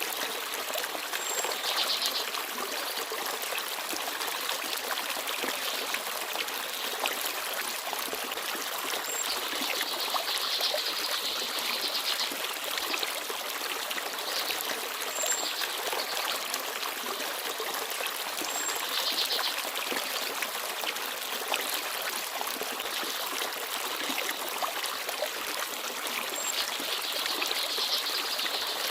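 Forest stream babbling and trickling steadily, with small birds chirping briefly every several seconds.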